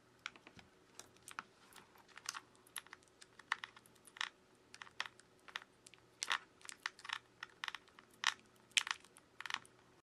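A quick, irregular series of small sharp clicks as a precision screwdriver works the tiny screws inside an opened Xiaomi Mi A3 smartphone.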